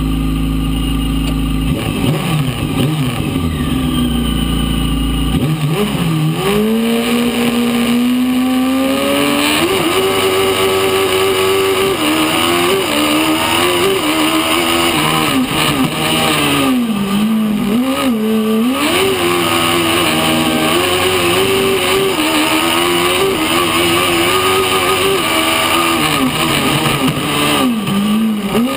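Fiat 600 prototype race car's engine, heard from inside the cabin. It runs steadily for the first second or so, then pulls away hard about two seconds in and revs high, its pitch climbing and dropping again and again with gear changes and throttle lifts.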